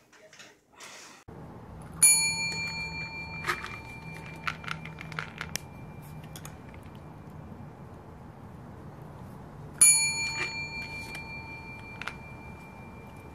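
A desk service bell dinged twice, about eight seconds apart, each ring fading out over a few seconds, with a few light clicks between: a cat striking the bell with its paw to ask for treats.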